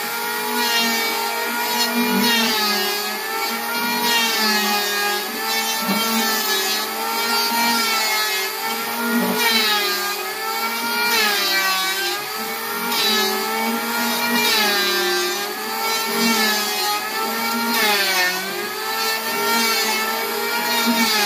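Electric hand planer running continuously as it is pushed across wooden boards. Its motor whine sags in pitch and recovers every second or two as the blade bites into the wood on each pass.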